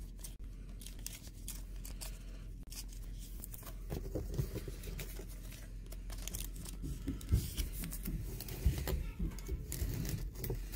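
Clear plastic cello-pack wrapper crinkling and trading cards rustling against each other as they are sorted by hand: a run of small, sharp clicks and rustles.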